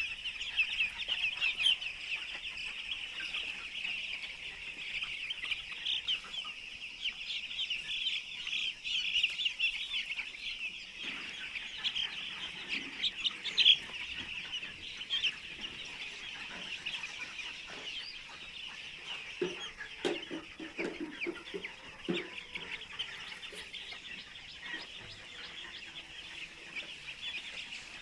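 A flock of young chicks cheeping, a dense, continuous chorus of short high peeps. A few lower, rougher sounds come in briefly around two-thirds of the way through.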